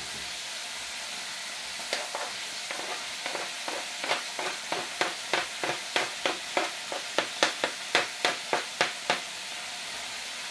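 Meat frying in a pan on a gas stove, a steady sizzle. Over the top comes a run of sharp taps, about three a second and loudest in the second half, as chopped onion is scraped off a cutting board into the pan.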